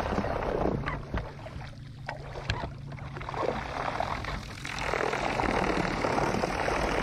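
Bass boat motor running with its propeller churning through shallow water and mud, over a steady low hum; the churning grows louder about five seconds in as the boat is worked free of the shallows.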